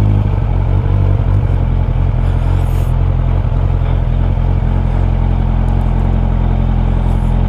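Suzuki Bandit 600 motorcycle's inline-four engine running steadily at an unchanging pitch, with a brief hiss about two and a half seconds in.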